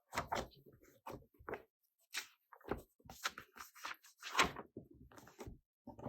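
Handling noises of a planner being fitted into its cover: an irregular string of short taps, rustles and clicks, the loudest about four and a half seconds in.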